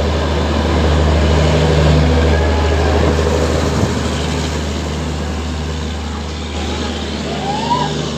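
Passenger train running, heard from the open doorway of a moving coach: a steady rumble of wheels on the rails mixed with rushing air. A brief rising call or whistle sounds near the end.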